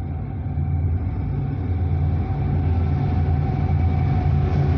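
Low diesel rumble of an approaching freight train's locomotives, growing steadily louder as the train nears.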